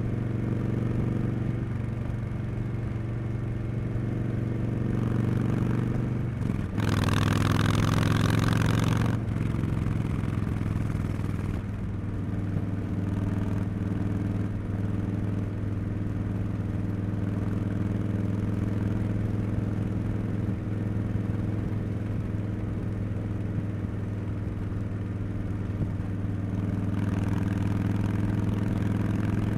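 A Harley-Davidson Street Bob 114's Milwaukee-Eight 114 V-twin running through Cobra Neighbor Hater slip-on mufflers while riding. About six seconds in the pitch dips and a louder rush lasts a couple of seconds. The engine then settles into a steady cruise and grows louder again near the end.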